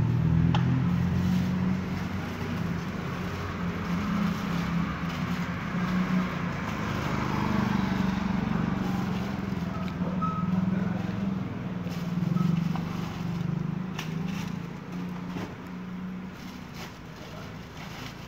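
A motor vehicle engine running steadily close by, its sound fading over the last few seconds. Light clicks and plastic-bag rustling come from hands unpacking ingredients at a food cart.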